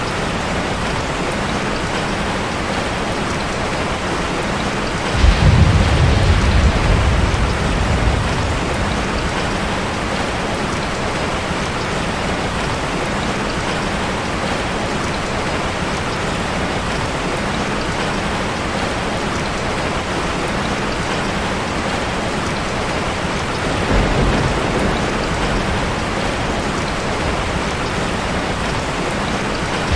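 Steady heavy rainfall with a sudden low rumble of thunder about five seconds in that fades over a few seconds, and a weaker rumble later on.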